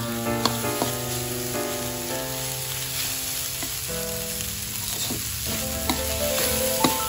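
Rice and shrimp-paste chili paste sizzling in a metal wok while a metal spatula stirs and scrapes through it, with a few sharp clicks of the spatula on the pan. Background music of held notes plays over it.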